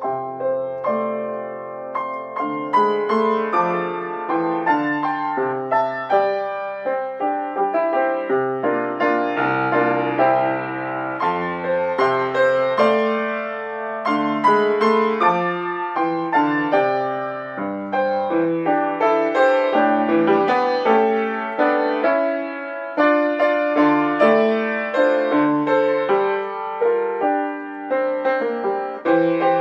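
Solo piano playing a classical piece, a continuous flow of notes over held bass notes.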